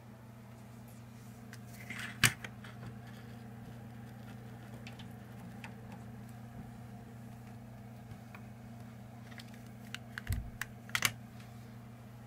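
Steady low hum from a running computer with its case open, with a sharp click about two seconds in and a cluster of clicks and knocks around ten to eleven seconds in.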